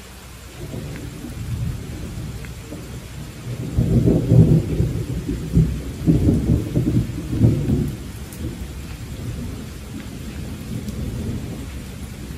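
Steady rain with a long, deep roll of thunder. The thunder begins about half a second in, is loudest from about four to eight seconds, then fades to a low rumble.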